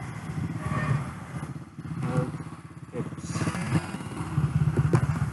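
A steady low engine-like rumble with a fast, even pulse runs throughout, with a few faint clicks over it.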